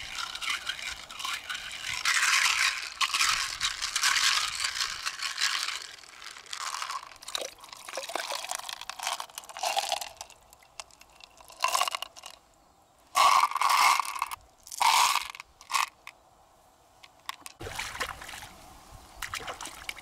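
Loose freshwater pearls rattling and grinding against each other in a small plastic jar as it is shaken and handled, in irregular bursts with short pauses.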